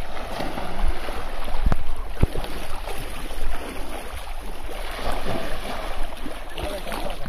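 Water splashing and sloshing as a person lunges and wades through shallow water with a bamboo polo fish trap, with a couple of dull thumps about two seconds in.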